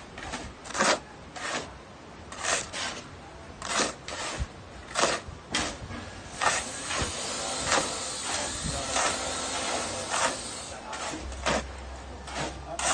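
A shovel scraping through a pile of sand and cement on the ground as concrete is mixed by hand, in repeated strokes about once a second.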